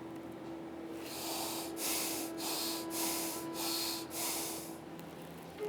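A person breathing sharply through the nose: about six quick hissing breaths in a steady rhythm, each roughly half a second long.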